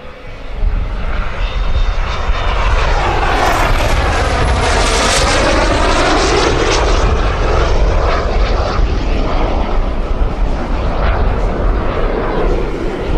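Pair of JetCat P-400 turbine-powered 1:2.7 scale L-39 Albatros model jets flying past: a steady jet rush with a high turbine whine that swells as they pass overhead about four to six seconds in, the whine falling in pitch, then carries on as they draw away.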